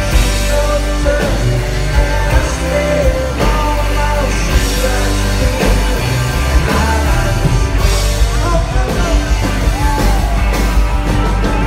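Live country-rock band playing loud, with fiddle, electric and acoustic guitars, and drums. Sliding, wavering melody lines run over a steady beat.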